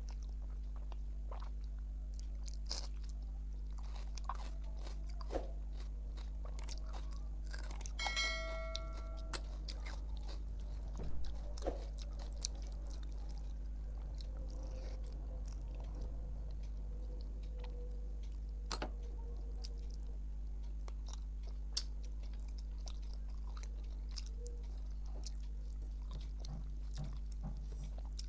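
Close-up eating sounds: soft chewing and wet mouth clicks, with a brief ringing clink about eight seconds in and a dull knock about three seconds later. A steady low electrical hum underlies it all.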